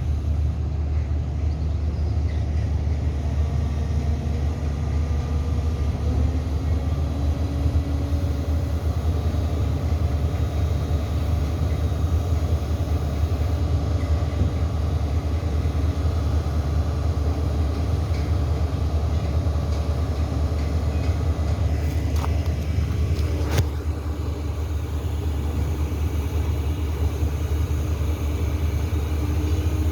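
Steady low rumble of a running vehicle, with a single sharp click about 23 seconds in.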